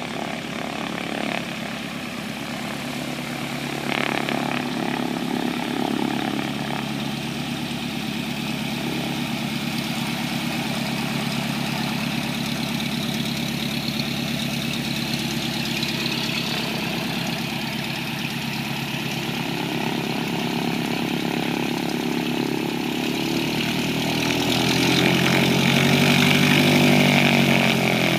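Cessna 152's four-cylinder Lycoming engine and propeller running at low taxi power as the plane taxis. It grows louder near the end, its pitch bending as the plane turns close by.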